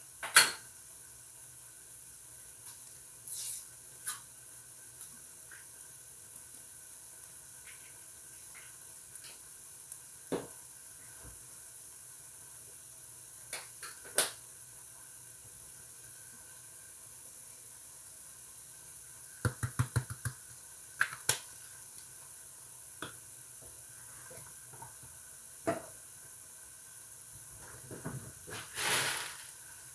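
Ground meat and vegetables frying in a large skillet: a steady sizzle, broken by scattered sharp clicks and a quick run of taps about two-thirds of the way through, with a brief louder rustle near the end.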